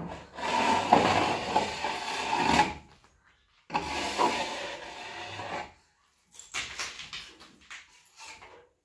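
Flat steel plastering trowel rubbed across a plastered wall in two long strokes of about two seconds each, followed by a few shorter scrapes and knocks.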